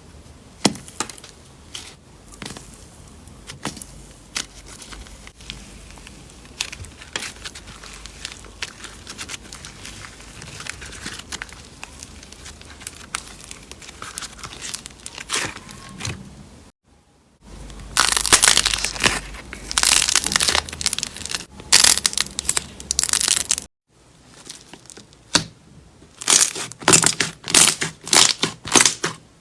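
Slime being squeezed, stretched and pressed, giving rapid crackling, clicking and popping. It is sparse at first, then much louder and denser after two short breaks between clips.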